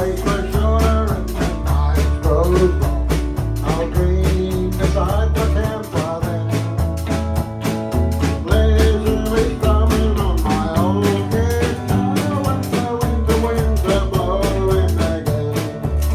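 A band playing a rock song: sung vocals over electric guitar, bass and drum kit with a steady beat.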